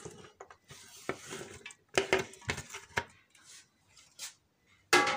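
Chopped tomatoes and onions being tipped and pushed by hand off a glass dish into a metal pressure cooker. There are scattered light knocks and clinks of the dish against the pot, and a louder clink near the end.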